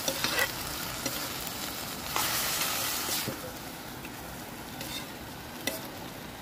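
A steel ladle stirs and scrapes chopped ridge gourd and other vegetables in an iron kadhai as they sizzle in the oil, with scattered clinks of the ladle on the pan. The sizzling swells about two seconds in.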